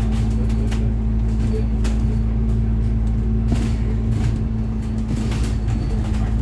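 Moving bus heard from inside the cabin: a steady low engine and road drone with a constant hum, and a few short clicks and rattles.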